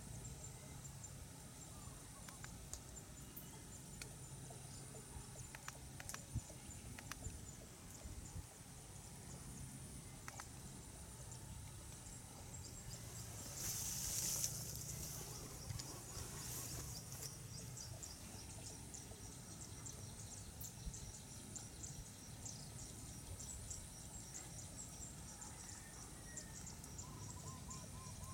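Insects calling in the field: a steady high whine with runs of rapid ticking chirps. A brief hiss rises about halfway through and dies away.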